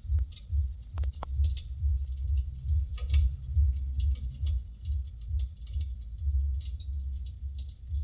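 Crackling wood-fire sound, the kind an electric fireplace plays to imitate burning logs: irregular sharp crackles and pops over a low, uneven rumble.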